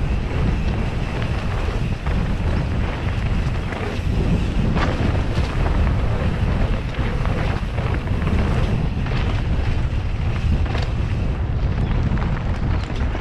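Wind buffeting the microphone of a camera riding along on a mountain bike at speed, over a steady rumble of tyres on a rough dirt trail, with frequent short knocks and rattles from the bike.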